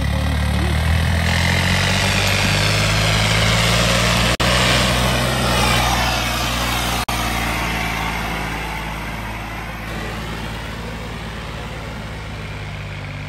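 Diesel tractor engine running hard under load in a trolley-pulling contest, a steady labouring note. It cuts out for an instant twice and eases off gradually over the second half.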